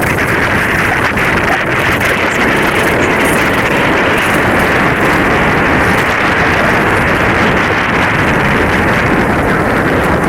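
Loud, steady rush of wind over the microphone with water rushing along the hulls of a Hobie Cat 16 catamaran under sail.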